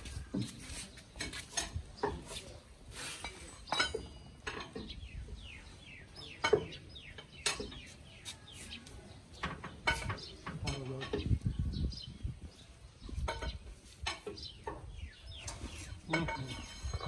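Irregular metallic clinks and knocks of hand tools on the underside of a 4x4 pickup, around its front axle and differential.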